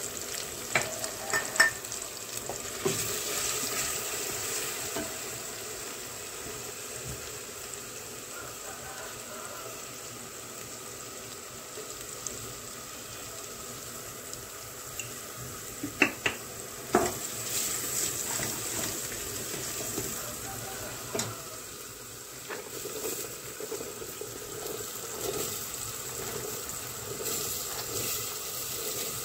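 Chopped onion and red paste sizzling in oil in a stainless steel pot, stirred with a wooden spoon. A few sharp knocks sound against the pot about a second in and again around sixteen seconds in.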